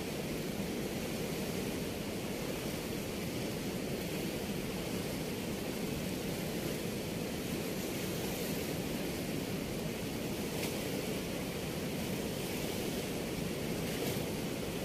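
Steady rushing noise of a swollen river pouring through the open gates of a weir, an even wash with no let-up.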